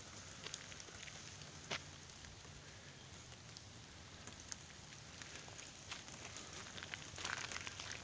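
Faint, steady water noise of runoff flowing and dripping over a wet gravel road, with scattered light clicks throughout and a few crunching footsteps on wet gravel and leaves near the end.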